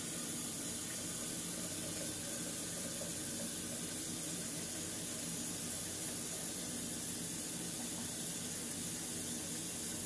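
Kitchen tap running steadily into a stainless steel sink while a plastic cup is rinsed under it.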